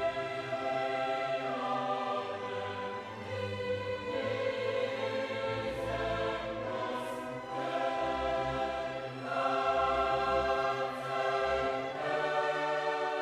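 Background music: slow, sustained chords with a choir-like sound, changing every couple of seconds.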